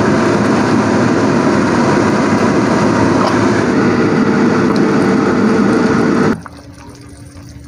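Steady rushing noise with a faint humming tone running through it. It cuts off abruptly about six seconds in, leaving a much quieter low hum.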